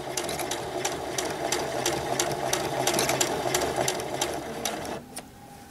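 Sewing machine stitching a seam at a steady, even pace, its needle strokes ticking rapidly, then stopping about five seconds in.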